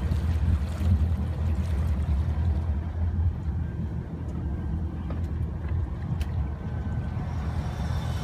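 Chaparral 276 boat's engine running underway with a steady low rumble, easing slightly about three seconds in.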